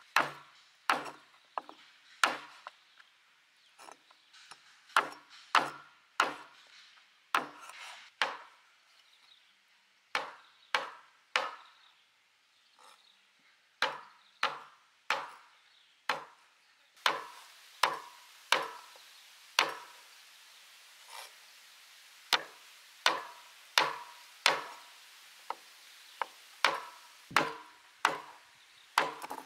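Large kitchen knife chopping the claw tips off raw chicken feet, each cut ending in a sharp knock on the wooden cutting board, irregularly about once a second with a short pause near the middle. A faint steady hiss comes in a little over halfway through.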